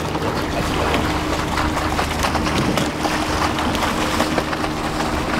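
Sweep-oar rowing shell under way: a steady rush of water and wind, with frequent short clicks and knocks from the oars and rigging, over a low steady hum.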